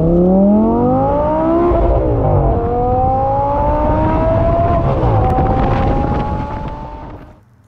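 Audi R8's V10 engine with a Fabspeed performance exhaust accelerating hard. Its note climbs through the revs, drops with quick upshifts about two and five seconds in, then climbs again before fading out near the end.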